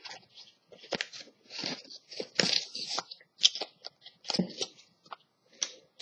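Pokémon trading cards handled close to a laptop's microphone: irregular rustling and scraping with small clicks, coming in short bursts with brief pauses.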